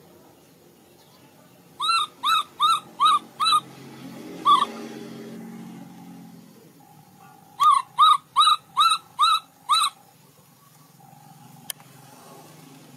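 Baby monkey calling in short, high, arching squeaks: a run of five about two seconds in, a single one, then a run of six near the middle, each about 0.4 s apart.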